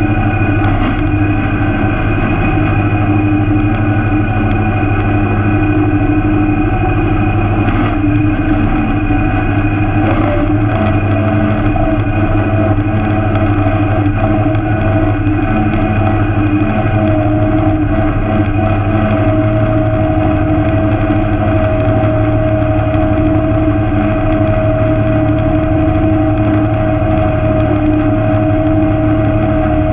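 Tractor engine running steadily while pulling a ten-wheel hay rake through cut hay. A steady whine joins in about ten seconds in.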